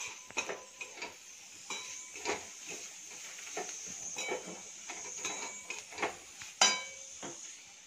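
Steel spatula stirring and scraping dry-roasted onion and coconut around a stainless-steel kadai, with repeated metallic clinks against the pan, some of them ringing briefly. The sharpest, loudest clink comes about two-thirds of the way in.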